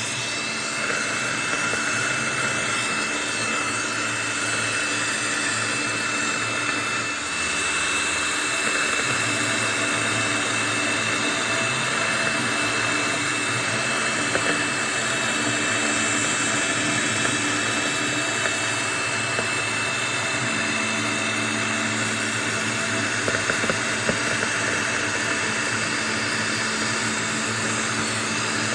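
Optimum CNC milling machine running, its spindle giving a steady high whine as the cutter mills into a screen printing plate (film-faced plywood), with small ticks and crackles from the cut.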